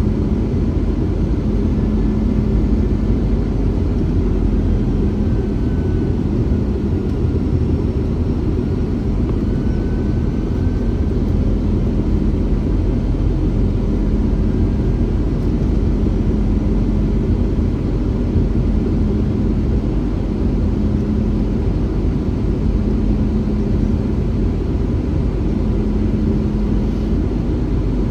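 Steady cabin noise of an Airbus A321-211 airliner in flight: its CFM56 engines and the rush of airflow, with a low hum that comes and goes.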